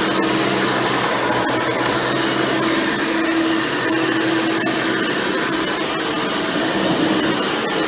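Hoover Elite Supreme upright vacuum running steadily, its 7.2 amp motor with a 20-blade fan impeller driving a single-row, stiff-bristle brush roll. It gives a steady whine over the rush of air.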